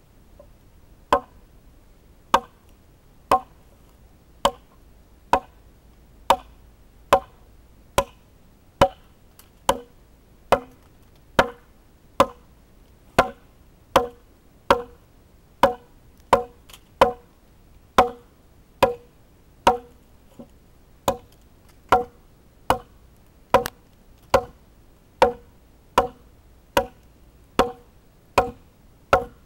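Hatchet chopping into a green, peeled log: a steady series of sharp, woody chops, about one a second.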